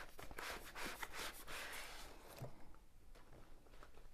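Faint rustling and scraping of a rolled diamond painting canvas in its paper wrapper being slid out of a cardboard box, with small ticks from the handling; it dies down about two seconds in.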